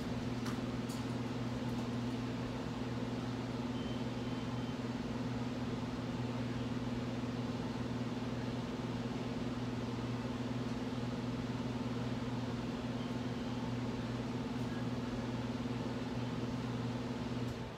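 Steady low electrical hum of a running household machine, unchanging, which cuts off suddenly near the end.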